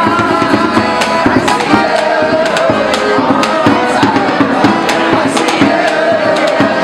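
A live acoustic band playing a song: an accordion with regular drum hits and singing over it.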